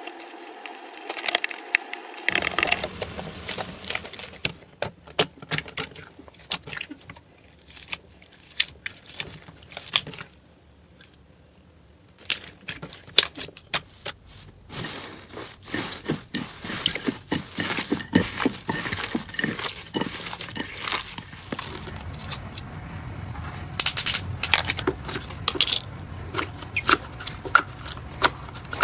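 Slime being kneaded, pressed and poked by hands, giving a dense run of small sticky clicks and crackles, quieter for a moment about ten seconds in.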